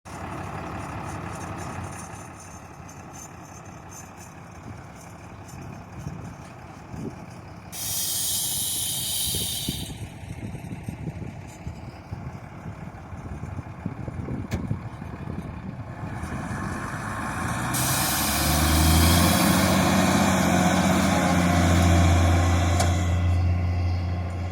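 Fendt Favorit 818 Turboshift tractor's six-cylinder diesel engine working in the field, growing louder as it comes close in the second half. Two stretches of hiss cut in and out before the engine gets loud.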